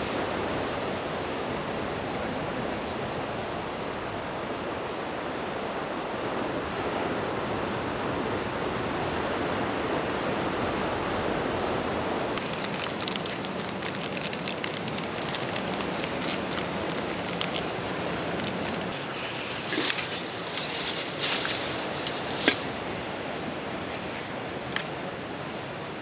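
A steady rushing noise of surf and wind. About halfway in, sharp clicks and crinkles of food handling take over: a plastic bag of meat being emptied, then metal chopsticks clicking against a steel cup on a small camp stove.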